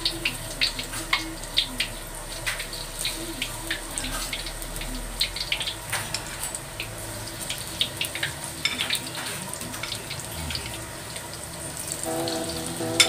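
Battered mushroom slices deep-frying in hot oil in a wok: a steady sizzle with frequent sharp crackles and pops as batter is dropped into the oil.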